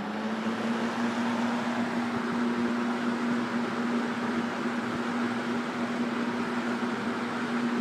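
Hunter box fan running on its high setting: a steady motor hum over the even rush of moving air. The hum rises a little in pitch at the very start as the motor comes up to high speed.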